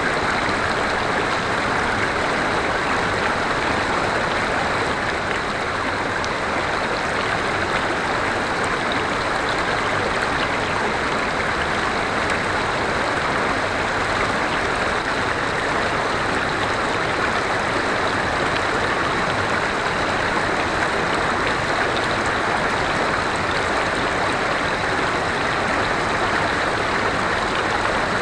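A forest river flowing, a steady rush of water over stones.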